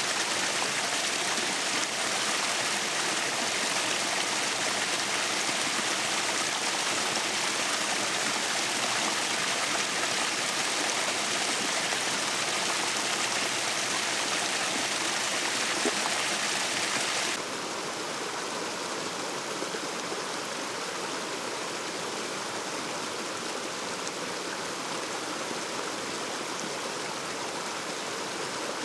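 Rushing water of a mountain stream or waterfall, a steady hiss. About 17 seconds in it abruptly becomes quieter and duller.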